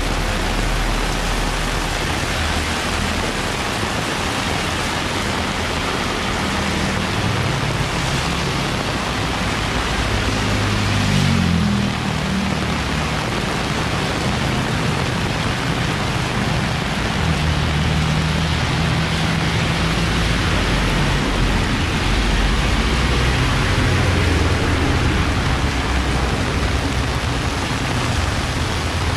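Heavy rain falling steadily, with the low hum of vehicle engines beneath it; one engine's pitch bends about eleven seconds in.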